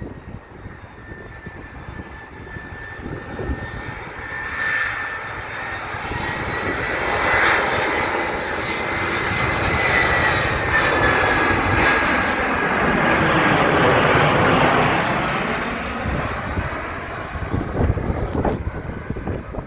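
Airliner passing over: a high engine whine with a rushing roar that builds to a peak about two-thirds of the way through, then eases off. Wind buffets the microphone at the start and end.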